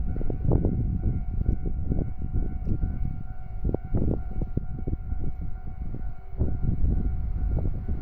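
Railway level crossing warning bell sounding a steady high tone, under a louder, gusty low rumble of wind on the microphone.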